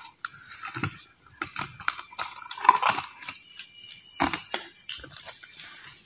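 Plastic clicks, creaks and crackles of a small clear plastic tub's snap-on lid being pried open and handled, then a stack of bangles knocking together as they are lifted out.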